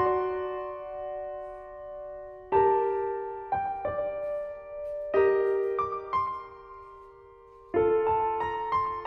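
Background piano music: slow chords that ring out and fade, then a run of quicker notes near the end.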